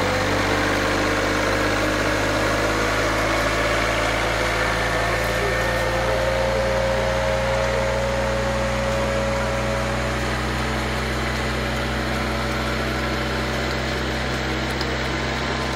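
Unmanned rice transplanter's engine running steadily as the machine drives through a flooded paddy, with a mechanical whine that edges slightly up in pitch over the first several seconds.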